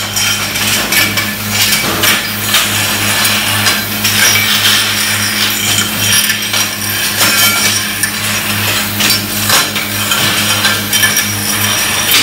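Factory floor noise: cast aluminium housings knocking and clinking against each other and the steel bench as they are handled, over a steady pulsing machine hum.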